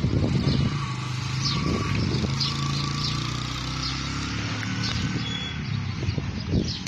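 A motor vehicle's engine running steadily through the middle, then fading.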